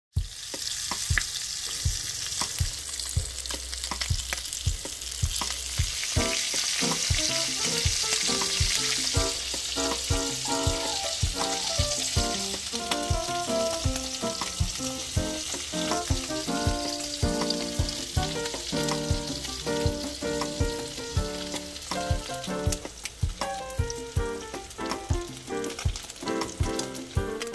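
Bean sprouts, tofu and vegetables sizzling in hot oil in a wok, with a steady high hiss and frequent sharp clicks of a spatula stirring against the pan. Light plucked music comes in underneath about six seconds in.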